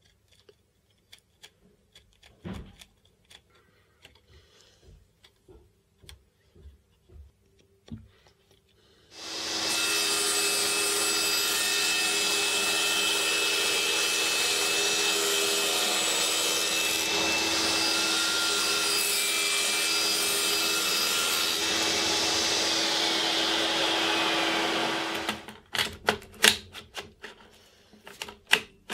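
A table saw starts about nine seconds in and runs steadily for about sixteen seconds while a board is pushed through it along the fence, with a falling whine shortly before it stops. Faint taps and handling sounds come before it, and a run of sharp knocks after it.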